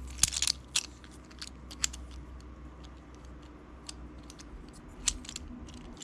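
Plastic infinity cube fidget toy being turned and folded in the hands, its hinged blocks clicking and clacking at irregular moments, with a quick run of clicks in the first second.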